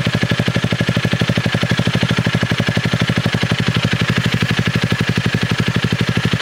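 Honda motorcycle's piston engine idling at the exhaust, puffing out a rapid, even train of exhaust pulses. Each pulse is what is left of one combustion stroke in the cylinder.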